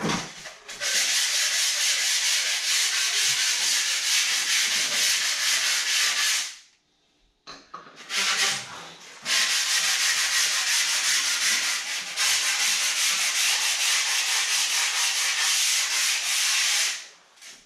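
Hand-sanding the cut edge of pink styrofoam board with a sanding block: a steady, hissing scrub of quick back-and-forth strokes. It stops for about a second around the middle, then resumes.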